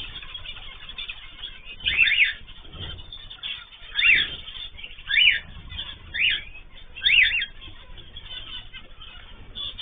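Caged ornamental birds calling: a loud, sharp call that rises and falls in pitch repeats about once a second from about two seconds in, over softer background chatter.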